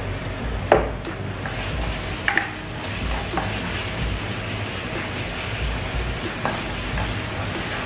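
Minced garlic sizzling in hot oil in a nonstick wok as a spatula stirs it. There is a sharp knock against the pan about a second in and another about two seconds in.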